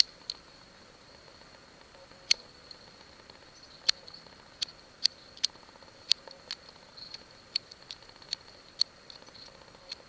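Swiss Army knife blade whittling a small wooden stick: a run of sharp, irregular clicks, well over a dozen, as each short cut bites into the wood and shaves off a sliver.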